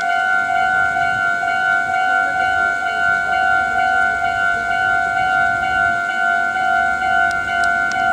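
Japanese level-crossing warning bell ringing with a steady two-tone electronic chime about twice a second, its gates down for a train. A low rumble builds underneath from about six seconds in.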